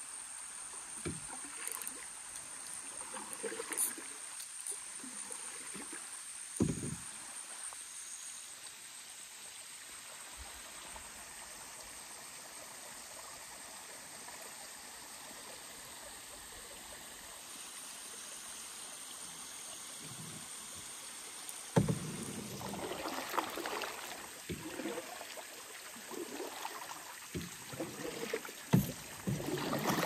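Kayak paddle strokes splashing and dripping in the water, scattered at first, then a quiet stretch, then busier in the last third. A steady high-pitched insect drone runs underneath.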